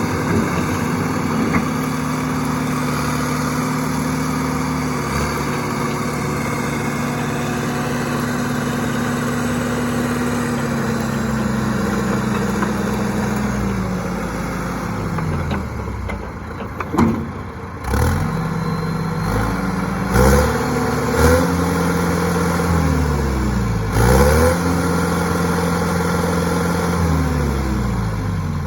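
John Deere 450C's diesel engine running steadily, then its revs dropping, then revved up and down several times. Several sharp metal clanks come in the second half.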